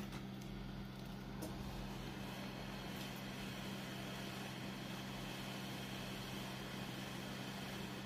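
Hot air rework gun blowing steadily over an iPad 7 logic board to heat a chip for removal: an even airy hiss over a constant low electrical hum.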